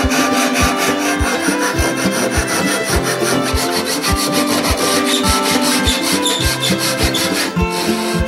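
Double-edged Japanese-style pull saw cutting across a wooden workpiece, over background music with a steady beat.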